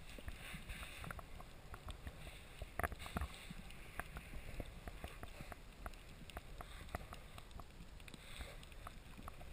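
Underwater sound picked up through a GoPro's waterproof housing: a faint low rumble of moving water with scattered small clicks and crackles, one louder click about three seconds in.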